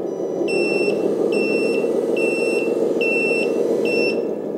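Reversing beeper from the sound module of a 1/14 RC Benz 8x8 truck, beeping five times at an even pace of a little over one beep a second, as the truck runs in reverse. Under it runs the module's steady simulated truck-engine sound.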